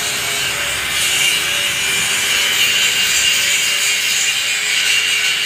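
A loud, steady rasping noise that runs without a break.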